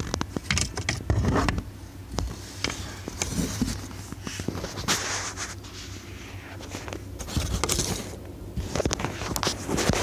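Irregular scraping, rustling and clicking of handling noise, hands and a phone moving about close to the microphone, over a low steady hum.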